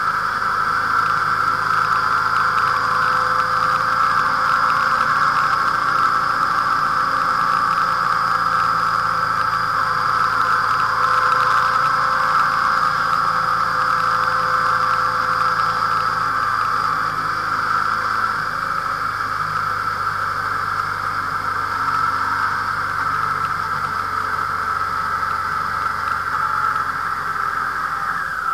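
Motorcycle running at a steady cruising speed, picked up by the bike's dashcam microphone: a constant low engine hum under a steady hiss of wind and road noise.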